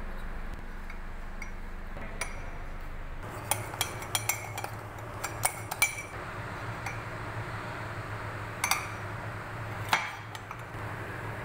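Metal spoon clinking irregularly against the side of a ceramic mug while beating coffee powder and sugar into a paste. The clinks come thickest a few seconds in, with single louder ones later, over a steady low hum.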